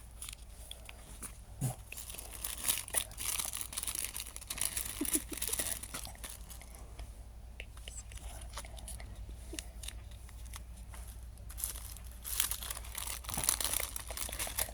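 Packaging crinkling and rustling as it is handled, in two longer bursts with scattered crackles and clicks between them.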